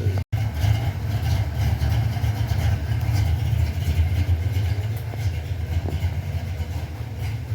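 Hot rod engine with a B cam idling through 2.5-inch exhaust with an H-pipe and Flowmaster Super 10 mufflers, a steady low pulsing sound. It cuts out for an instant just after the start.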